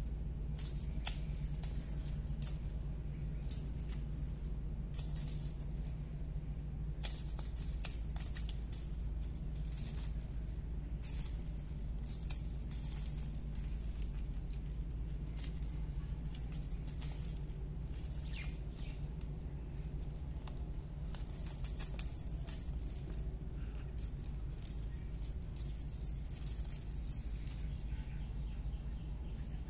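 Rattling and jingling in short, irregular bursts from a cat wand toy on a spring wire being shaken and batted, over a steady low hum.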